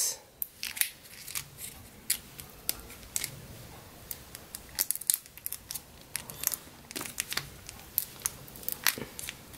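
Scattered crinkling and short crackling clicks of thin plastic being peeled by hand from the seam of a King Joy plastic surprise egg.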